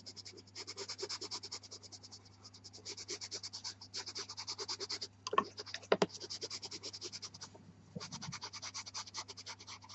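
Pastel pencil scratching across velour pastel paper in quick, short shading strokes, several a second, with brief pauses. About halfway through there are a couple of sharper knocks, and a steady low hum runs underneath.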